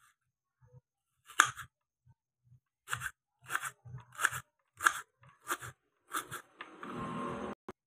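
Kitchen knife chopping a red onion on a wooden cutting board: about seven crisp, crunching cuts, then a rasping noise lasting about a second near the end.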